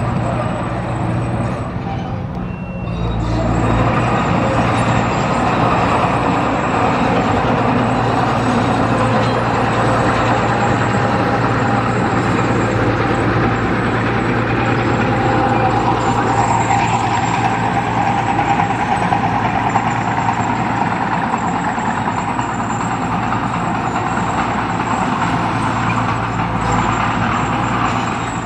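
Heavy diesel engine of a construction machine running steadily under load, with a dense mechanical clatter. The sound steps up louder about three seconds in.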